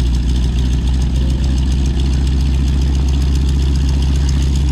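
Piston engine of a vintage propeller airplane running steadily at idle, a deep even drone.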